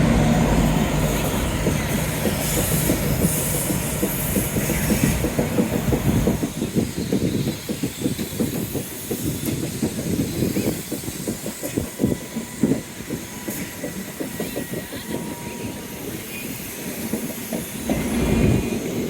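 Two passenger trains, one of them a CrossCountry train, running past on adjacent tracks. A steady rumble fills the first few seconds. After about six seconds it gives way to a long run of rapid wheel clatter over the rails, and the rumble swells again near the end.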